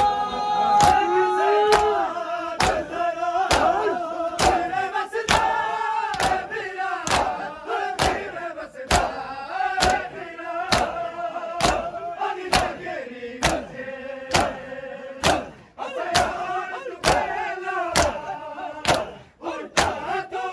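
A crowd of men beating their bare chests in unison (matam), a sharp slap of palms on skin about every three-quarters of a second, under men's voices chanting a mourning lament in time with the beat.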